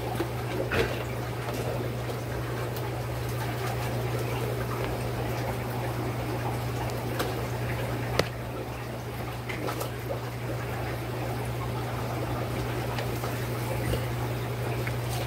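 Aquarium water steadily running and trickling, with a constant low hum underneath and a few faint ticks.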